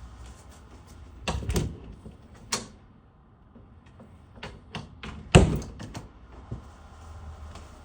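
A series of knocks, clicks and clunks, with the loudest, a sharp bang, about five and a half seconds in.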